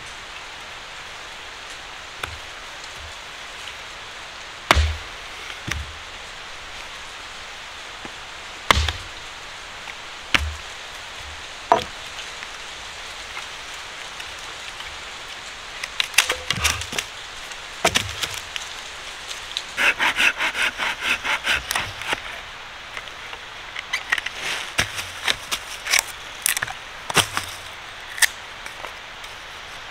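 Dry hardwood being split and shaved by hand into kindling: sharp wooden knocks a few seconds apart, then a quick run of rasping strokes about twenty seconds in, with more knocks and strokes near the end.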